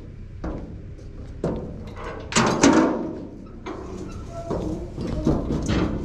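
Steel log arch frame on a flatbed trailer being raised into place: a series of metal clanks and bangs, the loudest about two and a half seconds in.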